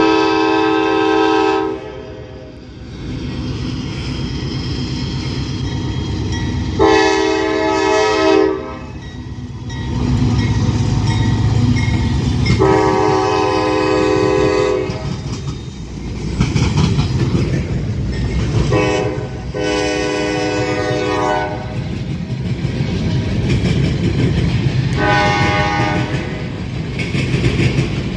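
A freight locomotive's multi-chime air horn blowing about six long blasts, a few seconds apart, over the steady rumble and wheel clatter of a train passing.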